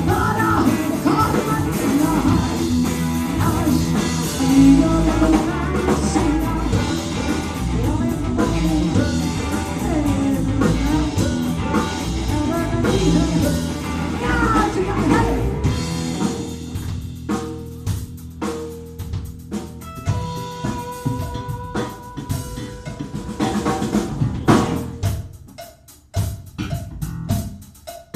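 Live rock band playing: a woman singing lead over electric guitars and a drum kit. About halfway through, the singing stops and the music thins out to drum hits, rimshots and held guitar notes, dropping lower near the end.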